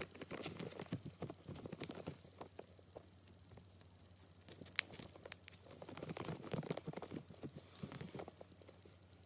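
Black slime being poked and squeezed by fingers, making quick irregular sticky clicks and pops, with one sharp pop about five seconds in.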